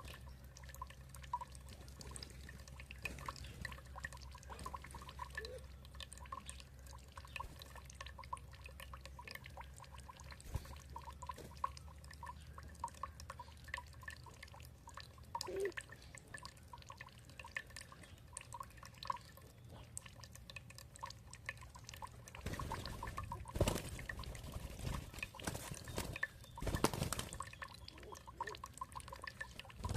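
Water dripping and trickling in many quick small drops, over a low steady hum. Two louder splashing surges come about 23 and 27 seconds in.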